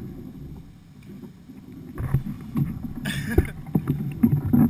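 Kayak on a flooded river: water splashing and sloshing, with low rumbling knocks on the camera microphone. There is a short louder splash about three seconds in.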